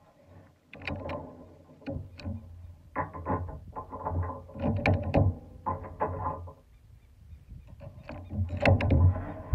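Irregular gusts of wind rumbling on an outdoor microphone, mixed with scattered clicks and knocks of hands handling the rifle and scope.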